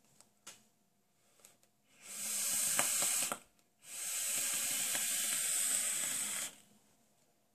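A vaper drawing on a box mod and blowing out a thick cloud. After a few faint clicks, there are two long breathy hisses of air and vapour, the first about a second long and the second nearly three seconds.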